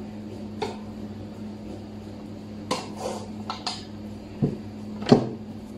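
A knife and cut pieces of cheese being handled on a counter: a few light knocks and clicks, the loudest about five seconds in, over a steady low hum.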